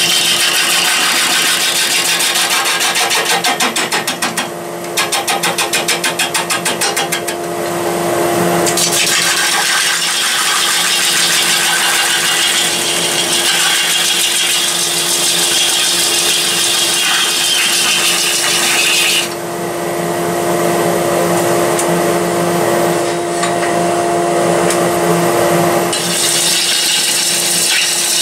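Wood lathe spinning a walnut log while a gouge roughs it down: a steady motor hum under the rasping hiss of the cut. A few seconds in, the cut comes as a rapid chatter of about six beats a second; later the cutting noise drops away for several seconds, leaving mostly the lathe's hum.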